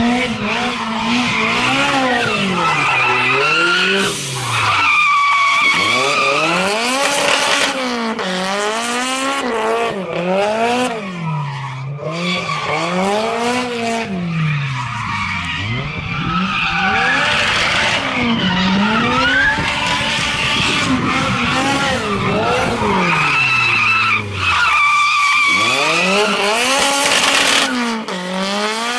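Toyota AE86 Trueno drifting in manji swings, its engine revs climbing and falling over and over, every second or two, with the tyres squealing throughout. The revs drop away briefly three times.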